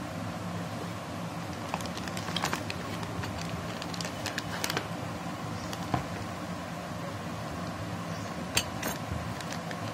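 Handling of graphics-card packaging: the anti-static bag crinkling and scattered light clicks and taps as the card is lifted from its molded pulp tray, with a sharper click about three quarters of the way through. A steady low hum runs underneath.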